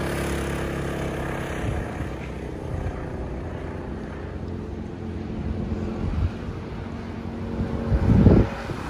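Go-kart engine running as the kart is driven, its note fading over the first few seconds. A brief low rumble comes near the end.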